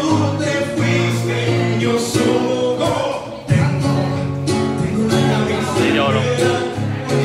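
Live amplified music: a male singer singing into a microphone over an acoustic guitar, with a steady low bass line under them.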